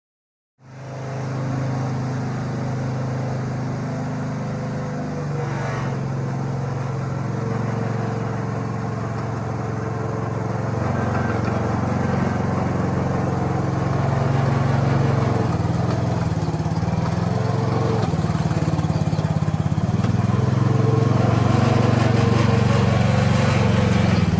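Small engine of a 1-ton mini excavator running steadily, its pitch rising and falling slightly as it works, getting somewhat louder in the second half. It starts abruptly about half a second in.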